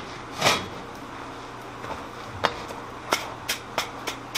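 A short clatter about half a second in, then hammer blows on hot steel being forged into a swage block, starting about two and a half seconds in at roughly three a second, each with a brief metallic ring.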